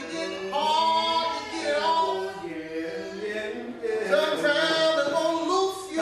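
Several male and female voices singing together in long held notes, with little or no instrumental backing.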